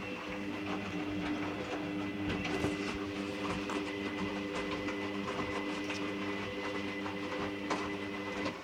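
Hoover Dynamic Rapid 30 washing machine running its first rinse: a steady mechanical hum with water noise and light rattling, which cuts off suddenly near the end.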